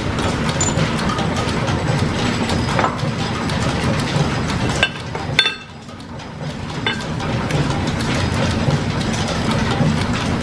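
Steady running clatter of a steam-driven line-shaft machine shop, with a few sharp metal clinks about five seconds in as a metal piston ring is handled against a steel angle plate, followed by a brief drop in the background noise.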